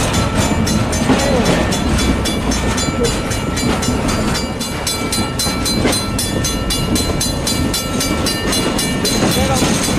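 Norfolk Southern RoadRailer train, Triple Crown truck trailers riding on rail bogies, rolling past at speed: a steady rumble of wheels on rail with rapid, even clickety-clack over the rail joints.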